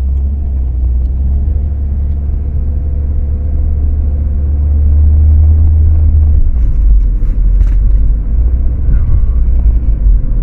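Low, steady road and drivetrain rumble from a 2012 Ford Focus heard inside the cabin while it is driven, growing a little louder midway.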